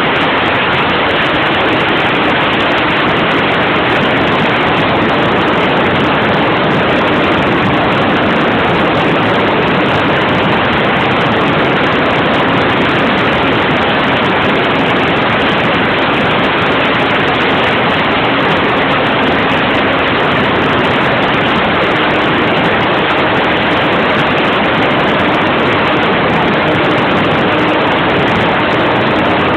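Loud, steady rushing noise with a faint steady engine tone beneath it. It fits the O.S. .46 glow engine of a Prangster RC model plane running in flight, recorded through a mobile phone's microphone.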